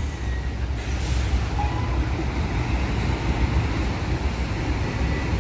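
Steady low rumble of idling and moving vehicle engines, including a heavy truck on the road, with a brief hiss about a second in.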